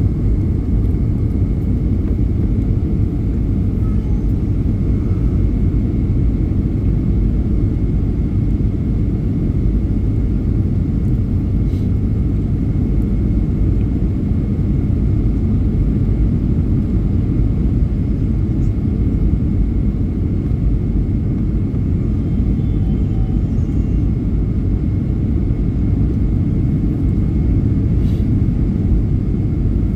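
Boeing 757-200 airliner in flight, heard from inside the cabin: a steady, even roar of its twin jet engines and the rushing air, with a faint high tone held throughout.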